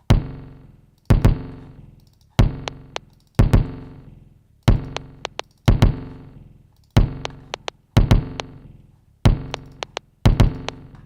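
A looping one-bar drum pattern made from found-sound samples: heavy kick-drum hits with long fading tails, two per bar plus a lead-in, with short sharp high clicks placed between them as the pattern is built up.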